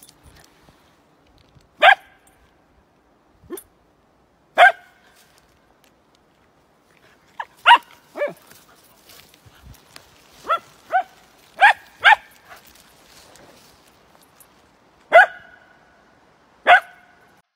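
A Finnish spitz barking: about a dozen short, sharp single barks, irregularly spaced, some coming in quick pairs.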